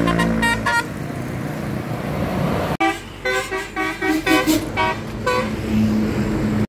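Bus telolet horn, a multi-tone musical horn, sounding a quick run of short toots at changing pitches, with road traffic noise in between. A few toots at the start, a stretch of engine and road noise, then after an abrupt cut a longer tune of toots.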